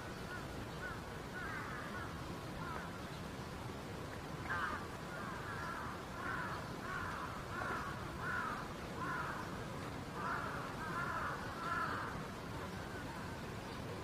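A bird calling a series of about ten harsh, caw-like notes, roughly one every 0.7 s, starting about four seconds in and stopping a couple of seconds before the end, with a few fainter calls at the start.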